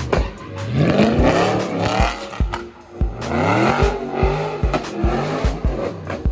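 Car engine revving hard in several rising sweeps as it drifts, with tyre squeal, over a hip-hop beat with deep bass notes.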